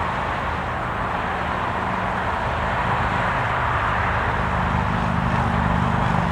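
Steady rush of highway traffic, with a low engine hum growing stronger in the second half.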